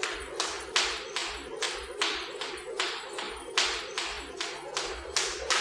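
Jump rope slapping the floor in a steady rhythm, about three strikes a second, each with a soft low thud.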